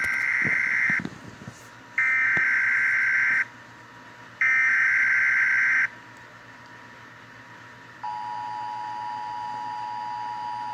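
Emergency Alert System SAME data bursts, three harsh buzzing digital squawks about a second apart, marking the end of the alert message. About eight seconds in, a steady two-tone EAS attention signal starts and holds.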